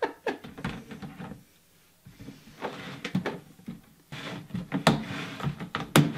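Hard plastic lid of a large enclosed cat litter box being set onto its pan and handled, with rattles and knocks, then two sharp loud clicks near the end as the lid's side clips are fastened.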